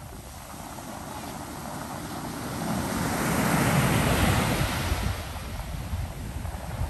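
Ocean surf breaking on a sandy beach: the wash of a wave swells to its loudest about halfway through, then recedes.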